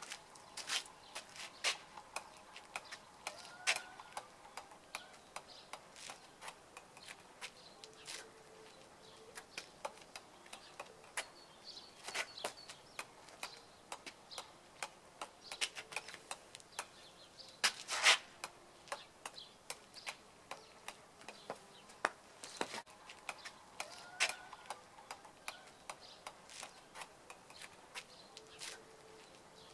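Golf ball bounced repeatedly on the face of a golf iron: a string of sharp clicks at an irregular rate of about two to three a second, with one louder click about eighteen seconds in.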